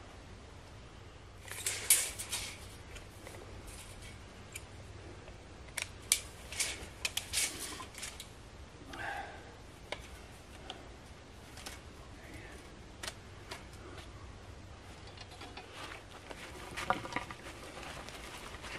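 Scattered crunches, scrapes and sharp clicks of soil and grit being worked at the base of a freshly set wooden post. They come in short flurries, about two seconds in, again around six to seven seconds, and near the end.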